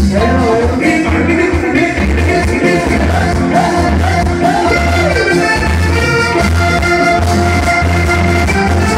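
Live vallenato band playing loud through the stage sound system: accordion over bass and percussion with a steady beat.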